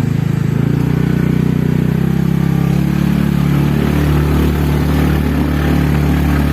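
TVS Ntorq 125 scooter's single-cylinder engine running steadily under way, its pitch shifting a little about half a second in and again around three seconds in.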